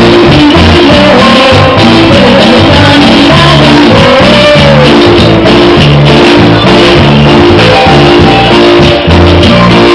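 Live band playing a Latin dance song, very loud and close to clipping: a woman singing over electric guitar and drums with a steady beat.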